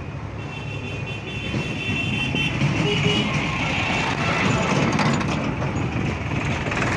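Diesel tractor engines running on the move, a steady low rumble with wind noise on the microphone.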